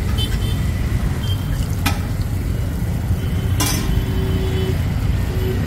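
Vadas sizzling in a large wok of deep-frying oil over a steady low rumble, with two sharp clicks about two and three and a half seconds in.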